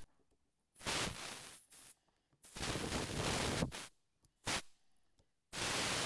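Compressed air hissing out in four bursts, the third one short, as a Milton locking air chuck is pushed onto a Schrader valve stem and fails to seal: the chuck won't stay on the valve and air escapes around it.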